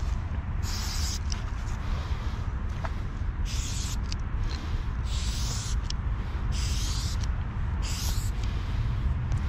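Aerosol spray-paint can spraying in about five short hisses, each under a second, over a steady low rumble.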